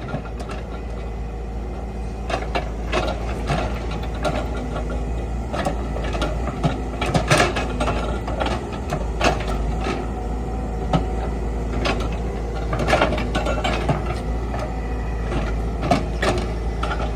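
Excavator diesel engine running steadily, with irregular knocks and clattering as rock grinds and breaks against the steel bucket.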